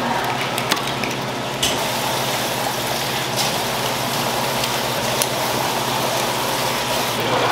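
Steady hiss of running water with a low hum underneath, and a few sharp clicks of a knife working on scallop shells.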